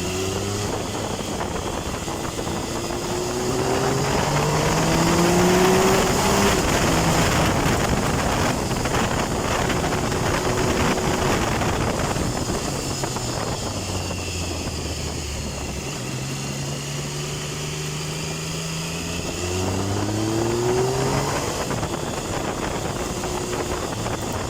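Triumph Tiger 1050's inline three-cylinder engine pulling hard under throttle, its pitch rising, easing off and dropping, then rising again near the end, over a steady rush of wind.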